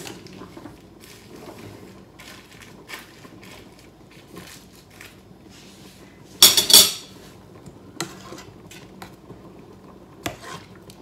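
Metal kitchen utensils knocking and scraping against stainless steel cooking pots: light scattered taps, then a loud rattle of several clanks about six and a half seconds in, and single sharper clinks a little later.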